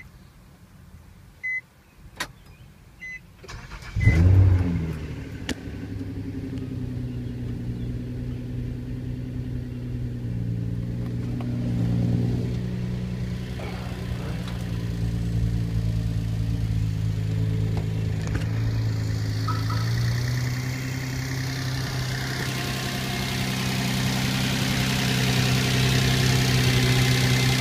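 A few short beeps, then the 2004 Nissan Maxima's 3.5-litre VQ V6 cranks and catches about four seconds in, flaring briefly before settling into a steady idle. This is the first start-up after an NWP spacer kit install, and the owner afterwards calls it good and real quiet.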